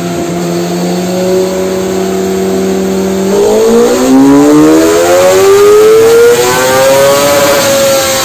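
Kawasaki ZX-25R's inline-four engine, tuned, loud on a dyno pull in fifth gear. It holds a steady pitch for about three seconds, then climbs steadily in pitch as it revs out, peaking about a second before the end and starting to fall as the throttle eases.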